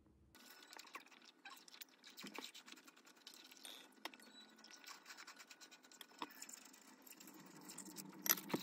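Faint clicks and scrapes of a metal eating utensil against plates and bowls during a meal, with small handling noises between them; the loudest clinks come near the end.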